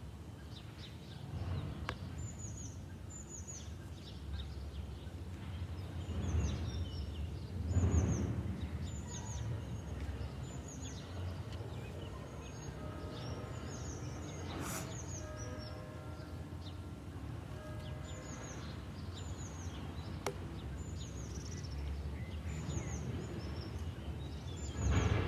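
A small bird calling over and over with short, high, falling chirps, about one a second, over a steady low outdoor rumble that swells louder a few times.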